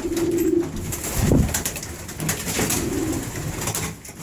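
Young racing pigeons cooing: one low coo at the start and another about two and a half seconds in, with a single dull thump about a second in.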